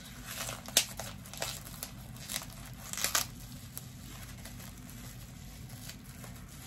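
Packaging crinkling and rustling as an item is unwrapped by hand, in short scattered rustles, the loudest about three seconds in.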